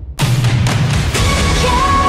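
Background music. A short gap at the start, then about a fifth of a second in the full track comes in with a steady beat and a long held melody note that bends in pitch.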